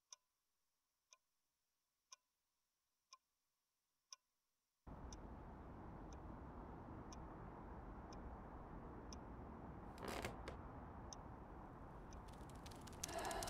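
Wall clock ticking softly, about once a second. A steady room-tone hiss comes in about five seconds in, with a brief rustle around ten seconds and a run of light clicks near the end.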